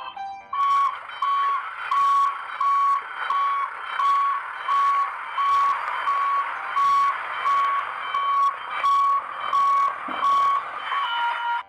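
A toy sand truck's electronic reversing beep: one high tone repeating about twice a second over a steady hiss, stopping just before the end.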